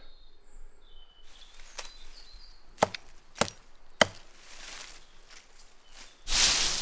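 Four sharp chops of a hatchet into wood, about half a second to a second apart, the first lighter than the rest. Near the end comes a louder rustling rush.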